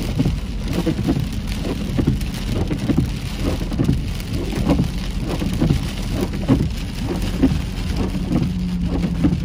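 Rain pattering on a car's windshield and roof, heard from inside the cabin, with the windshield wipers sweeping and squeaking over the glass: the wiper blades are worn and due for replacement.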